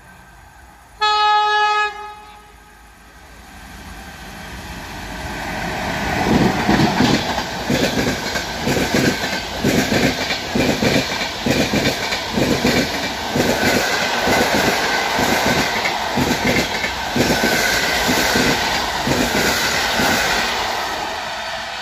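A PKP Intercity passenger train sounds one horn blast about a second long as it approaches. It then runs through at speed: a rising rush, then fast clickety-clack of the coach wheels over the rail joints as the carriages pass.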